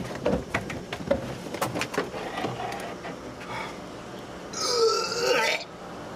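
A man spluttering, then giving one loud, rough retching belch about five seconds in, as he heaves up beer over a trash can after being punched in the stomach while chugging it.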